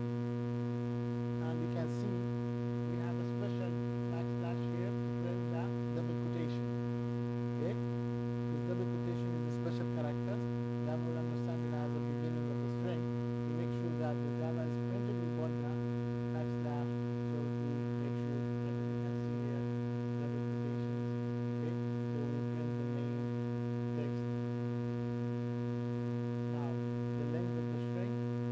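Steady electrical mains hum with a ladder of even overtones, strongest low down, and faint indistinct voices murmuring underneath.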